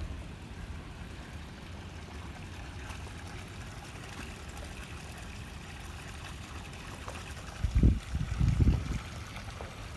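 Wind buffeting the microphone: a steady low rumble, with two louder gusts near the end.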